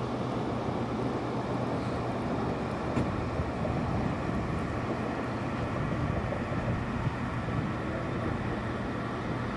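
Steady outdoor background noise: an even rushing haze with a low steady hum underneath and a couple of faint ticks, with no distinct event.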